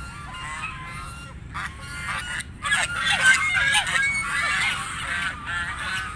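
Several geese honking, their calls overlapping, growing busier and louder about halfway through.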